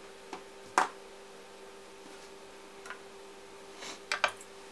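A few sharp clicks and taps from handling equipment on an electronics workbench: a loud single click about a second in, then a quick pair of clicks near the end as a hand works the bench power supply. A faint steady hum lies underneath.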